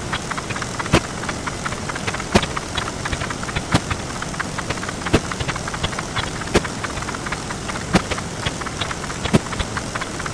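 Sound effects played back 64 times faster than normal, heard as a dense stream of short clicks over a steady hiss. A louder click stands out about every one and a half seconds.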